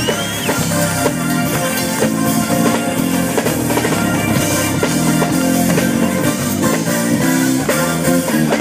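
Live band playing an instrumental passage on electric guitar and drum kit over a low line of notes, with no singing.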